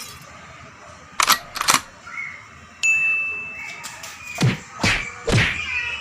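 Two sharp clicks, then a bell-like ding about halfway through that rings on steadily, followed by three quick swishes falling in pitch near the end.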